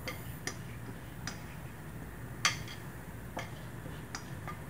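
Scattered light clicks and taps of a glazed ceramic bowl being tipped and scraped out by hand over a cooking pot, the clearest about two and a half seconds in.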